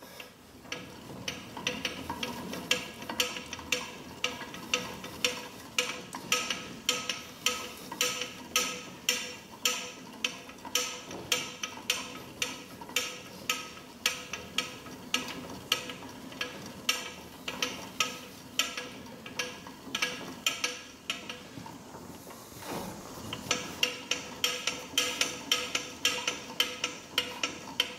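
Carriage of a large Monarch Series 90 engine lathe traversing along the bed, with a steady mechanical clicking about twice a second over a faint whine. The clicking stops briefly about three quarters of the way through, then resumes.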